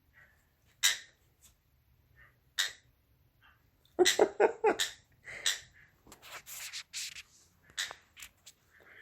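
Canary-winged parakeet giving short, sharp chirps a second or two apart, then a quick run of chattering calls about four seconds in, followed by a rustling noise and a few clicks.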